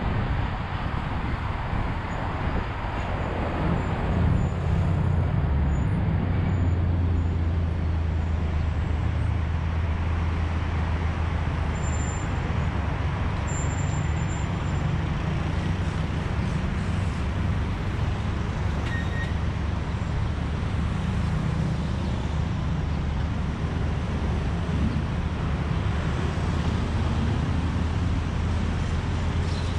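Road traffic noise: a steady low engine drone with a haze of tyre and road noise, slightly louder from about four seconds in.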